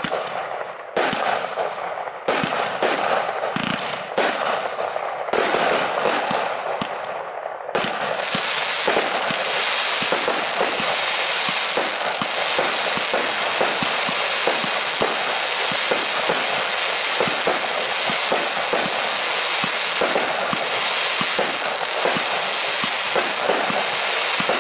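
Lesli Golden Blackhole, a 133-shot 30 mm compound firework battery, firing: at first separate launches and bursts with short gaps, then from about eight seconds in a dense, unbroken barrage of shots and bursts.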